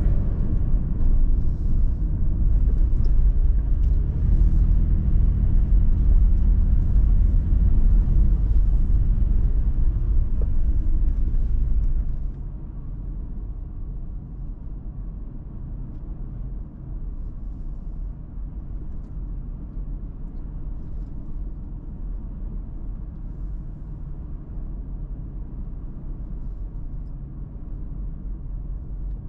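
Toyota 4Runner's engine and tyres heard from inside the cabin while driving on a paved road: a steady low rumble that drops suddenly to a quieter level about twelve seconds in.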